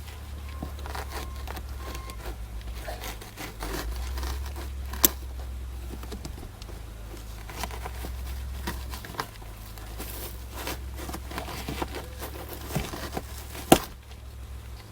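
Hands working a plastic sunroof switch and map-light assembly and its wiring through the roof opening: scattered light plastic clicks and rustling, with two sharper clicks, one about five seconds in and one near the end, over a steady low hum.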